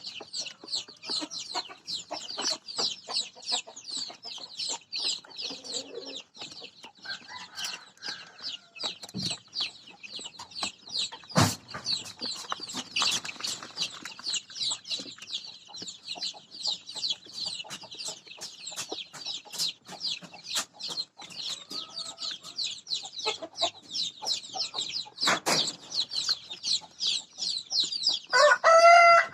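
A brood of day-old ayam kampung super chicks peeping continuously: many short, high, falling peeps overlapping, several each second. There is a sharp knock about a third of the way in, and a louder, lower call near the end.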